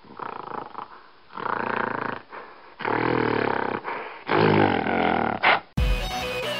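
A gorilla roaring, a series of about four long, loud roars with short gaps between them. Near the end, electronic dubstep music starts abruptly.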